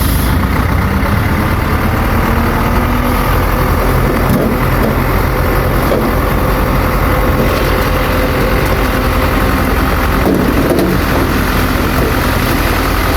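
Diesel engine of a heavy earthmoving machine running steadily and loudly.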